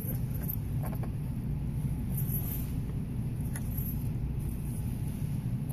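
A steady low background rumble, with a few faint clicks as cardboard cat-toy packages are handled on pegboard hooks.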